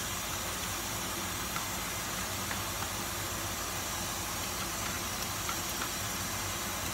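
Chopped garlic frying gently in oil in a nonstick pan, a steady sizzling hiss over a steady low hum. A few light ticks come from the spatula stirring it.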